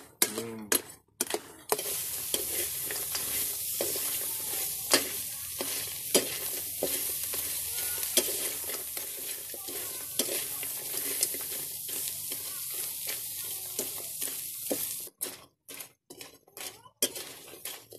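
Small kalampay crabs sizzling as they stir-fry in a steel wok, with a metal ladle clicking and scraping against the pan as it turns them. The sizzle starts about two seconds in and cuts off suddenly near the end, leaving a few scattered clicks.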